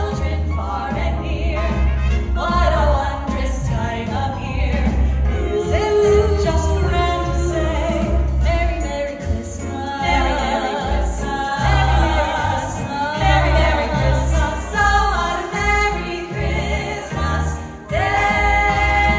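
A small vocal group singing a holiday song in harmony over instrumental accompaniment with a strong, pulsing bass.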